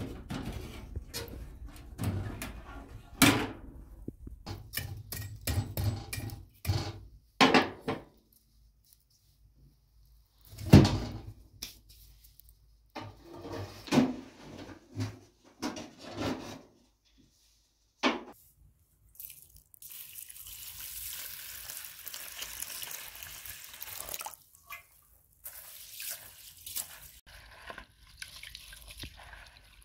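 Metal clanks and scrapes as a sheet-metal wood stove's door is opened and ash is shovelled out of its ash box, with several sharp knocks. Then a few seconds of steady pouring water, and near the end water sloshing in a plastic bowl as rice is washed by hand.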